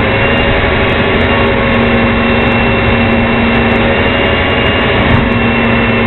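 Leach rear-loader garbage truck's diesel engine running at raised revs with a steady hydraulic whine as the truck lifts and tips a dumpster into its hopper. The lowest part of the whine drops out briefly about four seconds in, then returns.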